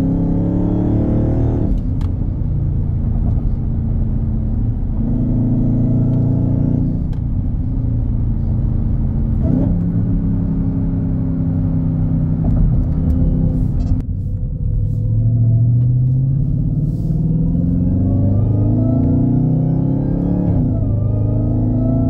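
Dodge Charger Hellcat's supercharged 6.2-litre HEMI V8 with a JLT cold air intake, heard inside the cabin under hard acceleration at high RPM. The engine note climbs in pitch, drops at each of several upshifts, and climbs again.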